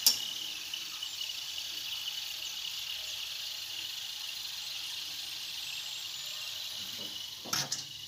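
Hot oil in a wok sizzling gently and steadily around deep-fried field beans (mochai) as they are scooped out with a wire spider skimmer. The sizzle has died down to this quiet hiss because the beans are fully fried and their moisture has cooked off. A sharp metal tap at the start and another short knock near the end.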